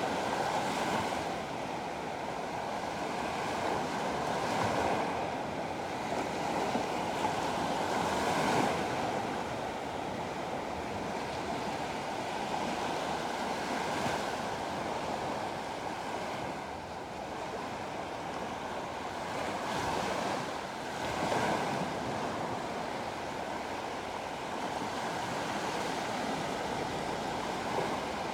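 Small sea waves breaking and washing up a beach, a steady surf hiss that swells every few seconds as each wave comes in.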